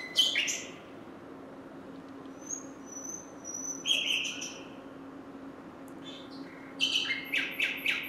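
Nightingale song in separate phrases: a short burst of notes at the start, thin high whistles leading into a brief loud burst around the middle, and near the end a fast run of repeated notes, about five a second. A faint steady low hum runs underneath.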